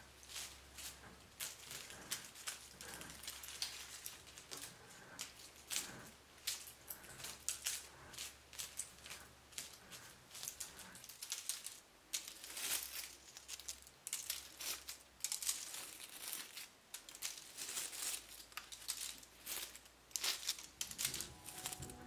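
Dry rose leaves and twigs rustling and crackling in quick, irregular crinkles as gloved hands strip the leaves off rose branches.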